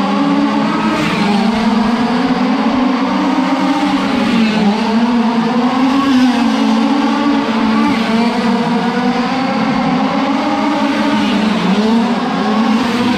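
Several 1/5-scale gas RC race cars' small two-stroke engines buzzing together at high revs as they lap a dirt oval. Their pitch dips and rises as the cars lift for the turns and accelerate down the straights.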